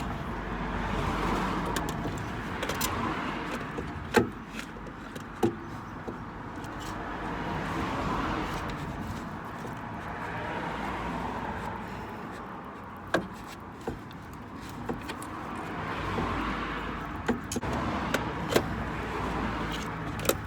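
Scattered sharp metallic knocks and clinks as an alternator is wiggled and pushed into its mounting bracket, working it in past the tight split bushes. Under it is a steady background noise that swells and fades every few seconds.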